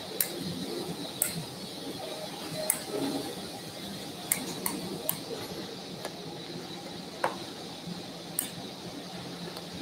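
Stainless steel surgical instruments clicking and clinking as they are handled: about eight sharp, separate metallic clicks over a faint steady background hum.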